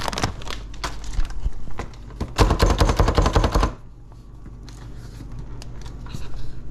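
Pecans being chopped in a hand-pressed plunger food chopper: a burst of rapid clattering strikes, about a second and a half long, starting a little after two seconds in. Before it, a plastic bag crinkling and scattered clicks.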